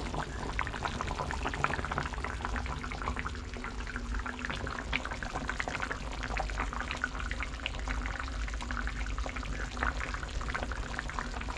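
Thick chicken curry bubbling in a clay pot, with a steady run of small pops and blips as the bubbles burst. A low hum runs underneath.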